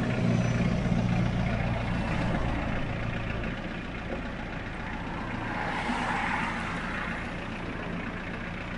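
Road traffic passing close by: a heavy vehicle's engine hum, loudest in the first few seconds and then fading, followed by another vehicle's tyres hissing past about six seconds in.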